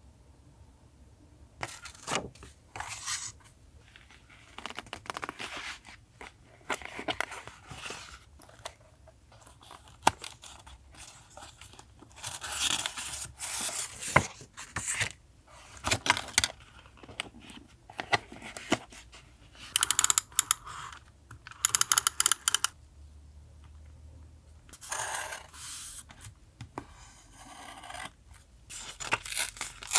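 Paper collage materials being handled: rustling, scraping and tearing in irregular bursts, with a few sharp taps.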